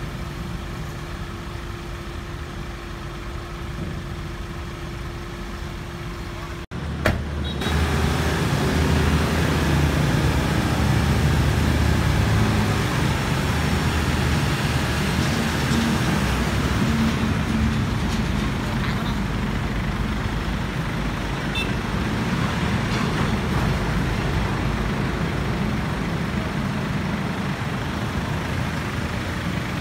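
Hyundai New Mighty N250 dump truck's D4CB four-cylinder diesel engine running steadily, with a faint steady whine. After a sudden cut about seven seconds in, the engine comes in louder and deeper.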